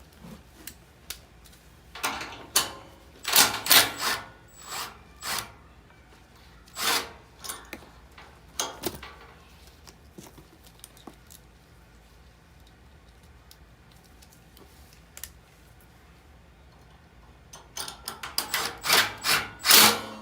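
Hands working on a furnace blower's parts: a run of short scraping, rattling and clattering noises, bunched near the start and again near the end, with a quieter stretch between.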